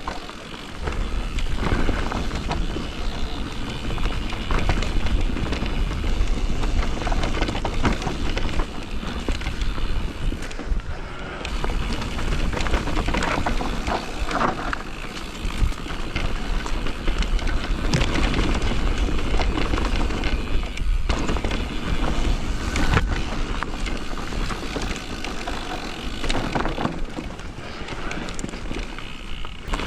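Simplon Rapcon Pmax Pinion e-mountain bike riding down a trail: tyres rolling over dirt and stones with frequent knocks and rattles from the bike, and wind rumbling on the microphone.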